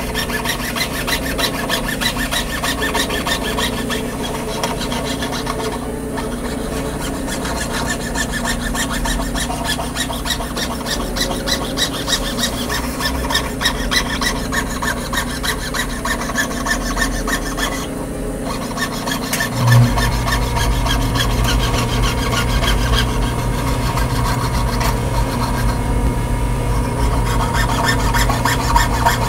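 Jeweler's saw cutting a sheet-metal monogram pendant on a wooden bench pin: fast, even rasping strokes of the fine blade through the metal. A steady low hum comes in about two-thirds of the way through.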